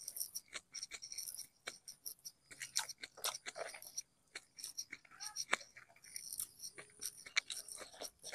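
A person eating with their fingers in a mukbang: close chewing and wet mouth smacks, a quick irregular run of clicks with short pauses.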